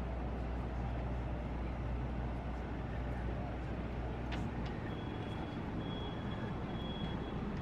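Steady low engine rumble, typical of a ferry boat's diesel engines, with a short click a little past four seconds in and a faint, thin, high steady tone from about five seconds in.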